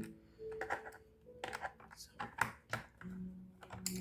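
Screwdriver clicking and scraping on a laptop's hard-drive screws as they are unscrewed: a run of light, irregular clicks.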